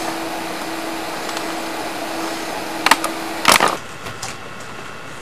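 Steady videotape hiss with a low, even hum, broken by two sharp clicks about three and three and a half seconds in. After the second click the hum stops and the hiss is quieter, as the recording gives way to tape noise.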